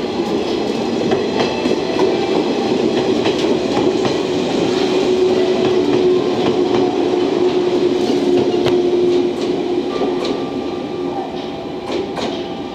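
JNR 115 series three-car electric multiple unit running past, its wheels clacking over rail joints, with a steady hum through the middle. The sound fades near the end as the train draws away.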